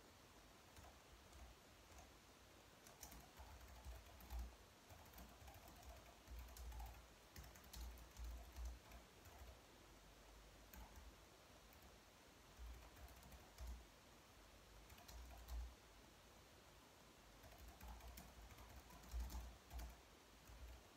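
Soft typing on a slim low-profile keyboard: quick runs of light key clicks in bursts, with short pauses between them.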